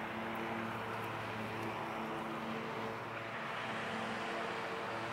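Lawn mower engine running steadily in the distance, mixed with the rush of road traffic, with a faint hum that shifts in pitch every second or so.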